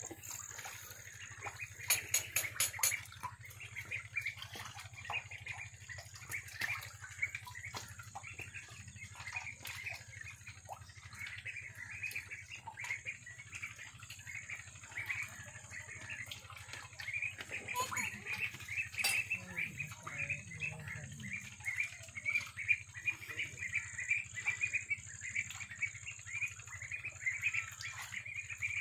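Small birds chirping rapidly and continuously, over a steady high-pitched whine, with a quick run of sharp clicks about two seconds in.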